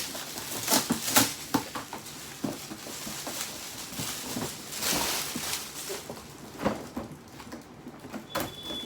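Gift packaging and a toy fire truck being handled: irregular clicks, knocks and rustles, with a longer rustling swell about five seconds in. A faint, steady high tone starts near the end.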